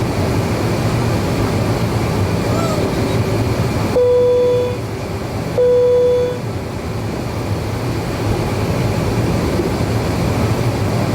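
Steady cabin hum inside an Avro RJ100 airliner on the ground before takeoff. Near the middle, two short beeps of the same pitch sound about a second and a half apart.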